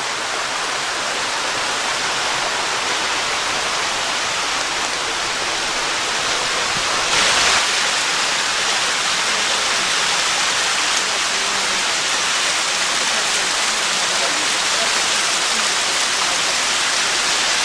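Water of a small multi-level woodland waterfall pouring and splashing, a steady rush that grows slightly louder, with a brief louder surge about seven seconds in.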